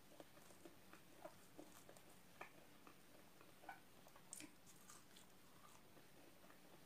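Faint, irregular clicks and soft crackles of chewing crispy-breaded fried chicken, with a slightly louder one about four and a half seconds in.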